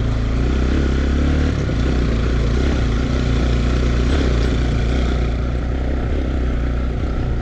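Motorcycle engine running steadily under way, with a continuous rush of noise over it.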